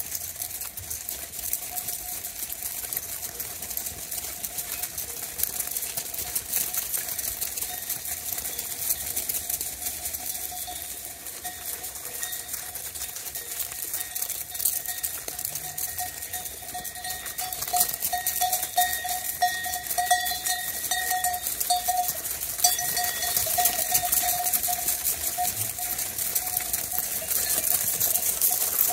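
Bells on a passing flock of sheep, clinking and ringing without a break over a dense patter of small clicks. The ringing grows louder about two-thirds of the way through as more of the flock passes close by.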